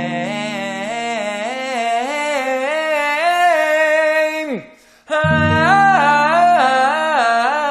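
A singer vocalizing a stepwise scale pattern on 'aye-ah' over held accompaniment chords, as a vocal warm-up. The phrase ends in a downward slide, and about five seconds in a new chord sounds and the next phrase, pitched higher, begins.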